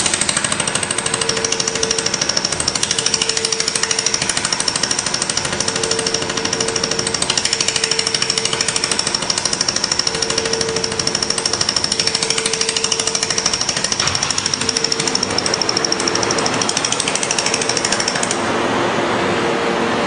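Automatic fiber laser welder firing a rapid, evenly spaced train of weld pulses into a steel part on a rotary jig, a fast steady crackle with a high steady whine over it. The pulsing and the whine stop about 18 seconds in, leaving a steady machine hum.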